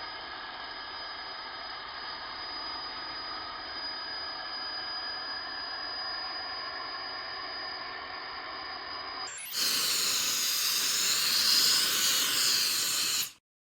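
Steady whine and hum of a CNC router running. About nine seconds in it gives way abruptly to a louder hiss, which cuts off suddenly near the end.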